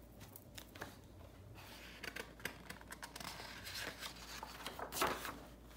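Faint rustling and small ticks of hands handling a large hardcover picture book, then a page turning with a brief paper swish about five seconds in.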